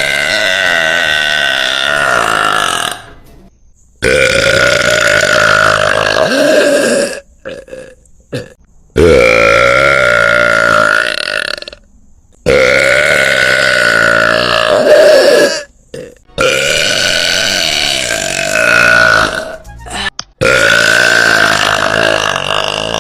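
A woman burping very loudly over and over: a string of long, drawn-out pitched burps, each about three seconds, with short pauses between them. One is already under way at the start and another is still going at the end.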